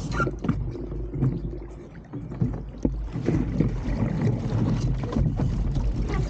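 An RS300 racing dinghy under sail, with water rushing and slapping against its hull and wind buffeting the microphone as a steady rumble. The sound eases briefly about two seconds in.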